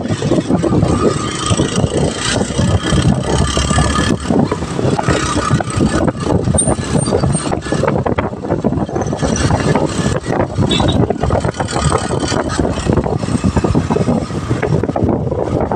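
Motorcycle tricycle running along a paved road: steady engine and road noise, with wind buffeting the microphone.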